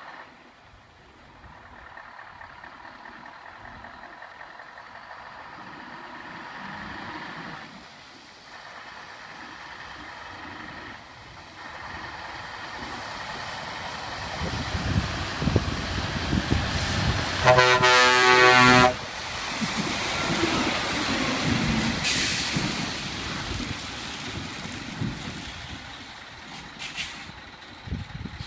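Articulated lorry's diesel engine growing louder as it approaches, with a horn blast lasting over a second about two-thirds of the way in as the loudest sound. A short air-brake hiss follows a few seconds later, with fainter hisses near the end.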